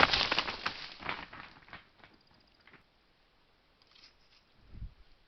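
Crackling and rustling of dry vegetation as an animal moves close to the trail camera, loud at first and dying away within about two seconds; a soft low thump near the end.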